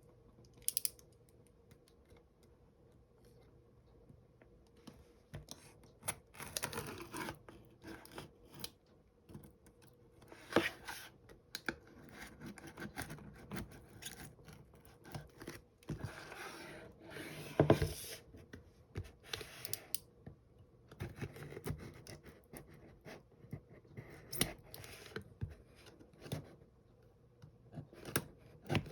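Product packaging being handled and opened by hand: irregular scraping, rustling and tearing of paper and plastic, with occasional clicks.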